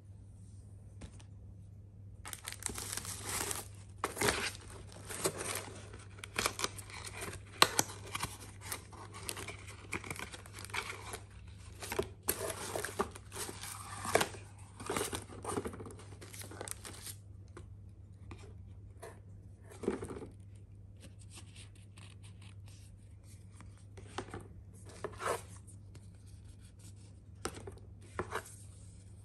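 Paper and cardboard rustling and crinkling with light taps and knocks as items are handled and lifted out of a tissue-paper-lined cardboard box. Busy for the first half, then only occasional clicks and knocks.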